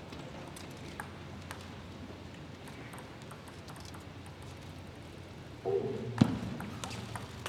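Steady hum of a table tennis hall with a couple of faint clicks. About five and a half seconds in it gets louder with a short pitched burst, followed by sharp knocks of the table tennis ball about a second apart.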